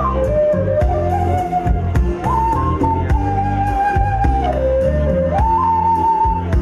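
A small vertical flute played through a PA, a slow melody of long held notes joined by slides down and up, over a low backing accompaniment.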